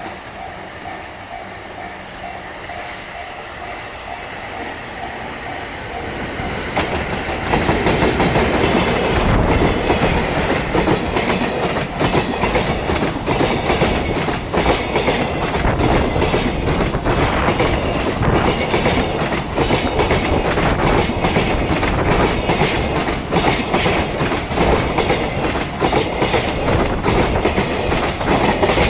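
A level-crossing warning bell rings in even, repeated strokes. About seven seconds in, a freight train hauled by an EF210 electric locomotive arrives and passes close by: its container wagons' wheels strike the rail joints in a loud, heavy, rhythmic clickety-clack that continues to the end.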